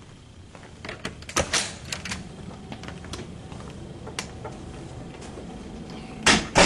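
Office door and its lever-handle latch being worked: a cluster of sharp clicks and knocks about a second in, then two loud knocks close together near the end.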